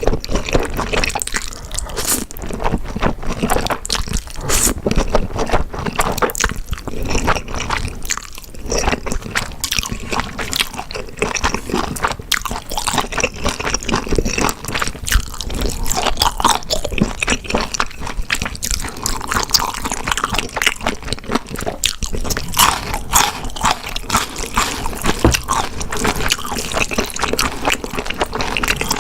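Close-miked chewing and biting of grilled beef intestines and spicy noodles: wet, squishy mouth sounds with many small crunchy clicks, going on without pause.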